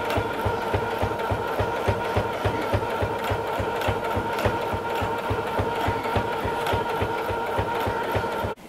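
Electric sewing machine stitching: a steady motor whine with an even, quick knocking rhythm of the needle, stopping abruptly near the end.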